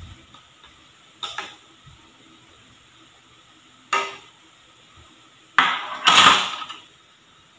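Metal kitchenware knocking while flour is sifted: a flour container and a mesh sieve are tapped against each other over a stainless steel bowl. There are two sharp knocks, then a longer clattering rattle of the sieve against the bowl about six seconds in.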